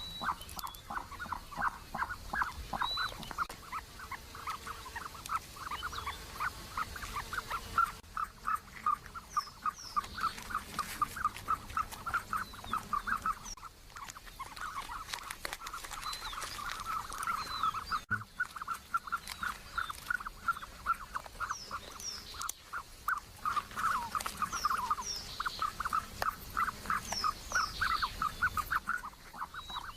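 Ostrich calls: a long run of rapid, repeated short calls at one mid pitch, pausing briefly a few times, with a few higher chirps over them.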